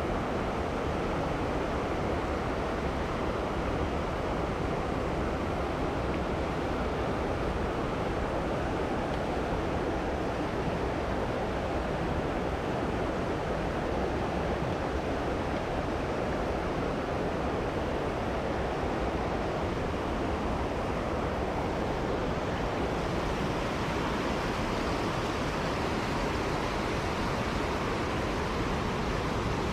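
Mountain stream water rushing steadily over rocks, a constant even hiss; the tone brightens slightly near the end.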